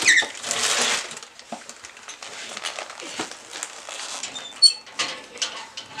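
Birdseed poured from a crinkling plastic bag into a small plastic cup, followed by light clicks and rattles of seed and plastic as the cup is handled, with one sharp click about four and a half seconds in.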